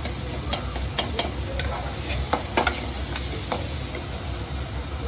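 Stir-frying in a pan: a spatula knocks and scrapes against the pan about eight times in the first three and a half seconds, over steady sizzling and a low rumble.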